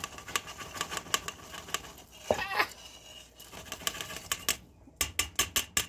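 Shredded cooked chicken scraped and tipped from a metal pan into a stainless steel pot, with irregular scraping and clicking of metal on metal. Near the end comes a quick run of sharp taps, about five a second, as the pan is knocked against the pot to empty it.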